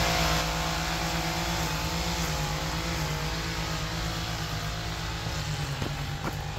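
Zero-turn riding mower engine running steadily, its note wavering slightly now and then.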